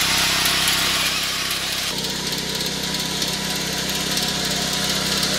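Small engine of a walk-behind power reaper running steadily under load while its front cutter bar cuts through green fodder crop. The sound shifts abruptly about two seconds in.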